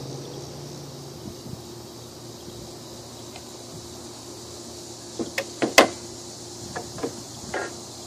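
A cluster of short, sharp clicks and knocks from empty aluminium drink cans being fitted together and a caulking gun being set down on a glass pane, the loudest just before six seconds in. Under them runs a steady low hum.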